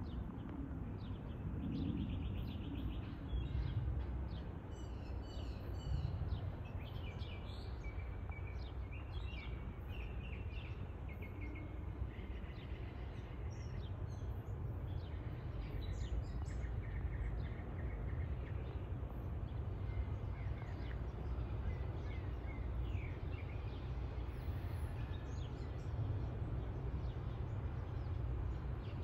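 Birds chirping and singing, many short calls and trills, over a steady low rumble.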